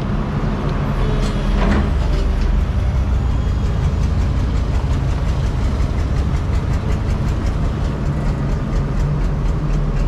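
Crawler excavator's diesel engine running steadily at close range, a low drone, as the boom and bucket swing.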